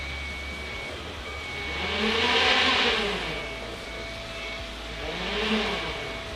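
A motor swelling louder and fading twice, its pitch rising and then falling each time.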